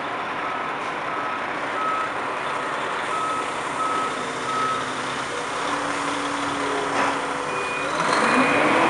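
Dump truck backup alarm beeping steadily, about three beeps every two seconds, over the running of diesel truck engines. Near the end a second, higher-pitched backup alarm starts beeping as the engine noise grows louder.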